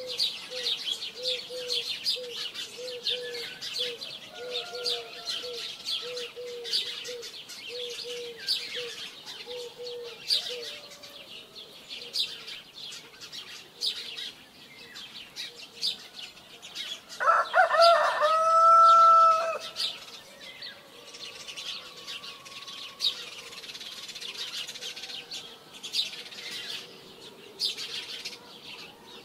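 Small birds chirping throughout. A low call repeats about one and a half times a second for the first ten seconds or so. A rooster crows once, loudly, for about two seconds, a little past the middle.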